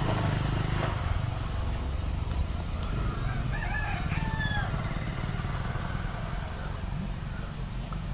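A rooster crowing once, about three seconds in, over a steady low rumble.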